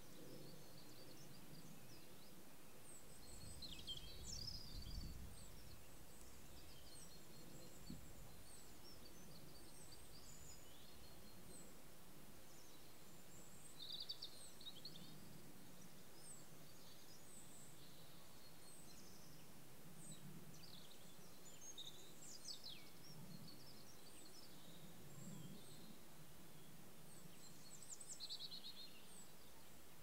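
Faint birdsong: scattered short chirps and trills from small birds over a steady background hiss. A low rumble comes in about four to five seconds in.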